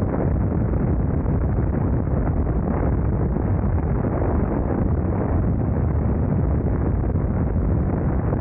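Wind rushing over the microphone of a BMW R nineT Scrambler motorcycle cruising at highway speed, a steady loud roar with the bike's air/oil-cooled boxer-twin engine running under it.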